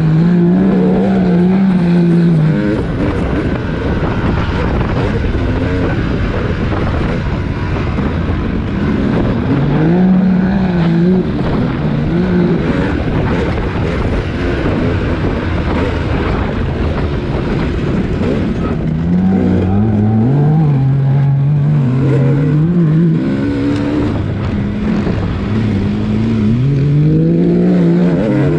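Dirt bike engine under way on a sand trail, its pitch rising and falling again and again with throttle and gear changes. Wind rushes steadily over the microphone throughout.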